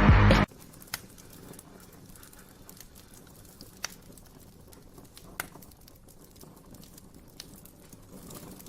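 Music cuts off half a second in, leaving a faint background with a few scattered sharp clicks or taps.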